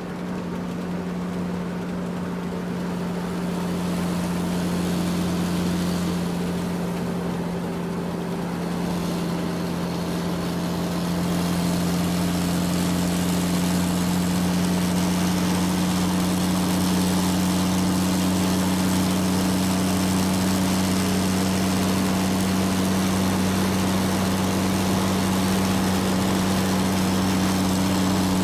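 Excavator's diesel engine running steadily with a low, even hum, growing somewhat louder and hissier about a third of the way through.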